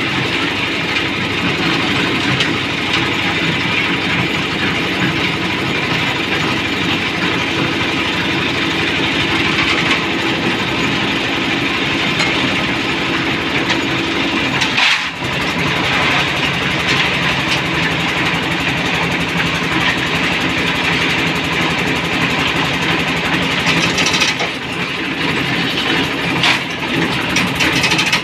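The engine of a concrete mixer fitted with a hoist, running steadily as the drum turns. There is a brief break about halfway through.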